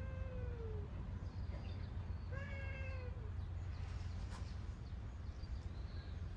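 Black-and-white cat meowing twice, once right at the start and again about two and a half seconds in; each meow lasts about a second and drops a little in pitch at the end. A steady low hum runs underneath.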